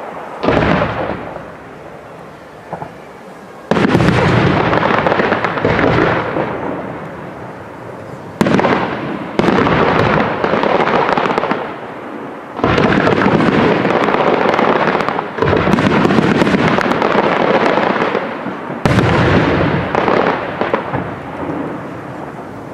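Aerial firework shells bursting in a professional display: about seven loud booms, a few seconds apart, each trailing off over several seconds.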